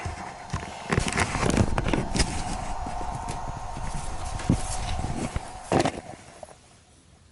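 Hitec X1 AC multi-charger giving a steady beep tone, its end-of-charge alarm for a fully charged LiPo battery, which cuts off about six and a half seconds in. Knocks and rustles of handling sound over it.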